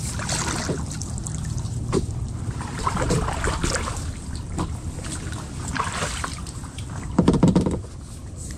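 Kayak paddle strokes: the blade dips and splashes, with water trickling off it, over a steady low rumble. A brief low voice-like sound near the end is the loudest moment.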